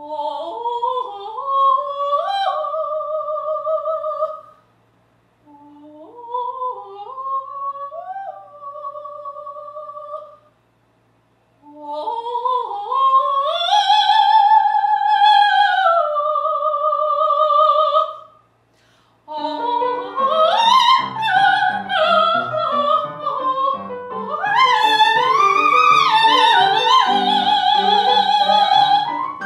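A female opera singer sings three phrases alone, with short silences between them. About two-thirds of the way through, an upright piano comes in with chords under her voice, and she goes on singing with the accompaniment.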